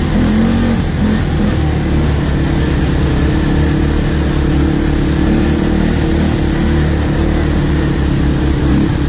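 ATV (quad bike) engine running steadily as it rides a dirt trail, heard close up from on board, its pitch lifting slightly a couple of seconds in.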